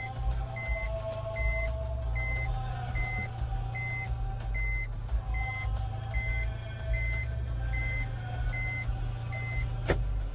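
A vehicle's electronic warning beeper sounding over the hum of an engine, with short, evenly spaced high beeps a little more than one a second. A single sharp click comes near the end.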